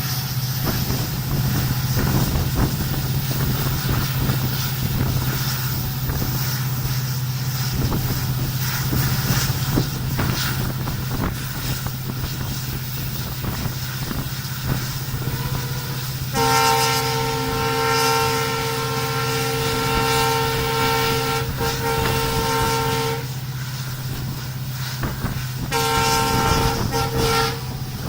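WDG-4D diesel locomotive's engine running with a steady low drone and some rattling clicks, then its multi-note horn sounding one long blast of about seven seconds, followed a few seconds later by a shorter blast of about two seconds.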